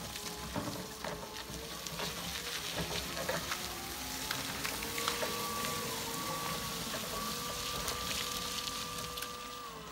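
Battery-electric TCM FHB25-6 forklift driving: a thin electric whine from its drive that rises and falls a little with speed, over a steady crackle of its solid tyres rolling on wet gravel.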